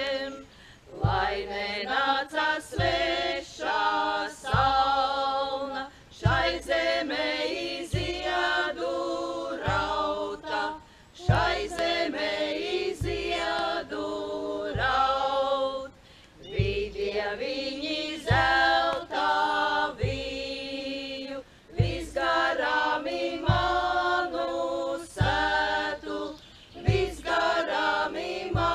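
A Latvian women's folk group singing a Midsummer Līgo song together, in phrases of about five seconds with short breaths between them. A low thud comes roughly once a second under the singing.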